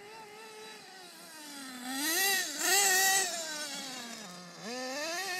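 HPI Hellfire RC truck's small engine running and revving: the note holds low at first, climbs to its loudest about two to three seconds in, falls back, then rises again near the end.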